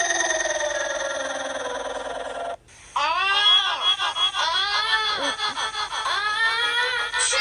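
A sneeze sound effect copied and stacked on itself many times, so that it sounds like a crowd of voices. A long wail slides slowly down in pitch and breaks off about two and a half seconds in. After a brief gap comes a dense tangle of warbling voices bending up and down in pitch, and near the end a new downward slide begins.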